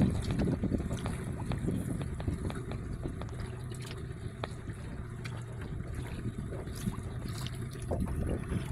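Small waves lapping and splashing against a small boat's hull, with small scattered splashes over a steady low rumble.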